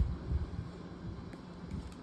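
Handling noise from a pack of trading cards being shuffled in the hands: irregular low bumps and a few soft clicks, the sharpest right at the start, over a faint steady low hum.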